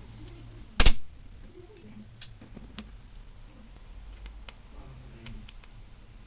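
Small hard clicks and taps of hand tools and phone parts during a smartphone battery replacement: one loud clack about a second in, then scattered light ticks.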